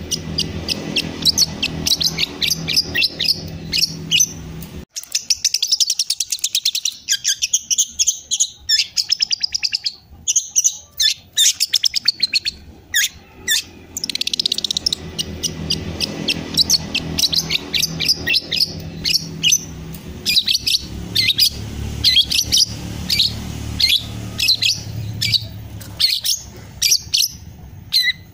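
Long-tailed shrike (cendet) singing a fast, unbroken stream of chirps and rapid trills. This is a young bird practising its repertoire of songs copied from other birds.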